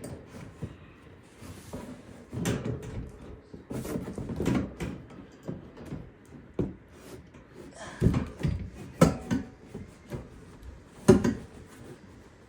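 Irregular knocks, bumps and scrapes as a 20-inch high-velocity floor fan and its stand are handled and pushed into a cardboard box, with the sharpest knocks about nine and eleven seconds in.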